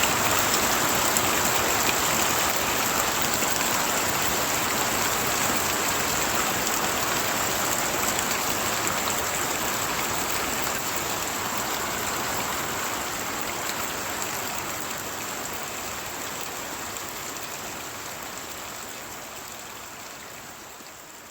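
Heavy rain pouring down as a dense, even hiss, gradually fading out over the last several seconds.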